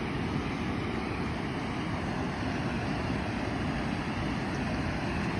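Steady rushing of water pouring through open canal lock gates.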